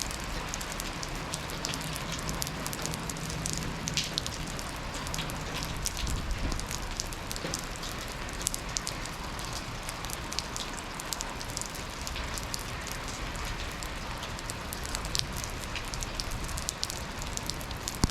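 Steady rain falling, an even hiss with many sharp individual drop impacts ticking over it.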